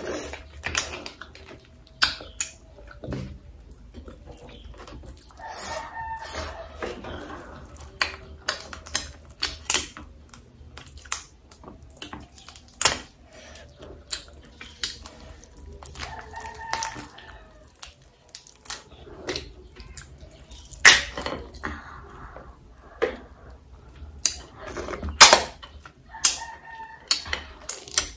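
Crisp fried crab shell cracking and crunching as it is pulled apart by hand and chewed, in sharp irregular snaps with wet chewing between them. A rooster crows three times in the background, about ten seconds apart.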